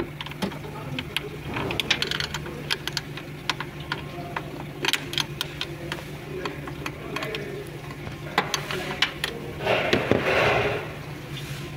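Ratchet wrench with a 12 mm socket on an extension clicking in quick, uneven runs while turning a bolt on a car's electric water pump, over a steady low hum. A short scraping burst comes about ten seconds in.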